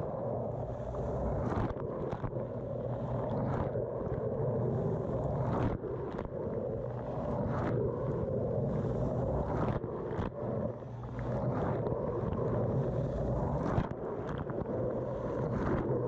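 Dishwasher wash cycle heard from inside the tub through a waterproof camera housing: a steady, muffled rush of water jets spraying and splashing over the camera, with brief louder surges every couple of seconds.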